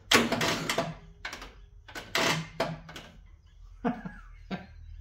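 A start attempt on a Husqvarna lawn tractor with a newly fitted electric starter and a flat battery: a string of irregular clicks and knocks, and no cranking or engine starting. The battery is run down from the key being left on.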